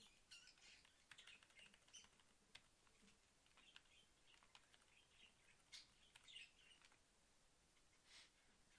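Faint computer keyboard typing and mouse clicks: scattered, irregular taps at a very low level.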